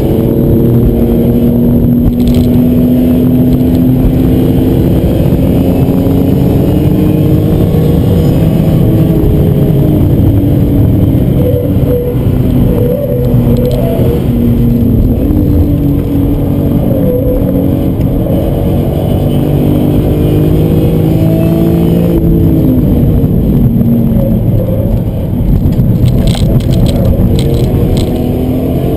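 BMW E46 M3's 3.2-litre straight-six engine running hard under load, heard from inside the cabin, its pitch climbing and falling repeatedly over steady tyre and road noise. A few sharp knocks come near the end.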